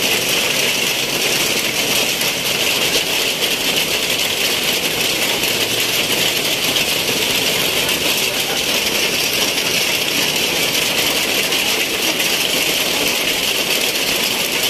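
Heavy rain pouring down, a dense, steady hiss with no let-up.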